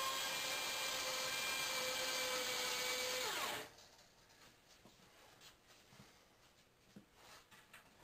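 Corded electric hand drill running steadily under load, turning a steel rod that winds Kanthal resistance wire into a heating-element coil in a wooden jig. About three and a half seconds in it is switched off and its whine falls in pitch as it spins down, leaving only faint clicks.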